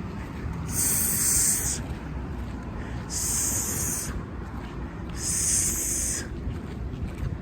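Three hissing bursts, each about a second long and a little over two seconds apart, over a low steady background rumble.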